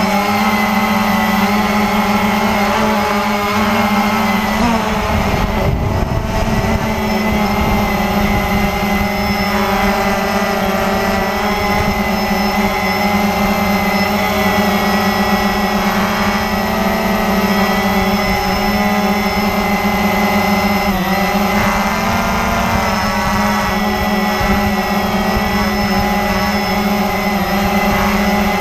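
Cheerson CX-20 quadcopter's four brushless motors and propellers, heard from the camera on board: a steady multi-tone whine with rough wind buffeting underneath. The pitch wavers about five seconds in and dips briefly about two-thirds of the way through as the motors change speed.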